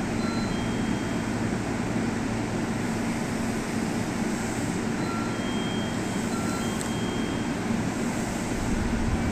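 A JR Central 313 series electric train stands at the platform with its equipment giving a steady hum, no traction motors running. Faint short high electronic tones sound now and then over the hum.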